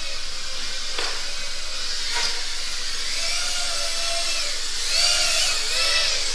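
Several ducted micro FPV racing quadcopters (whoops) flying at once, their small motors whining with a pitch that rises and falls as the pilots throttle up and down. Two sharp ticks come about one and two seconds in.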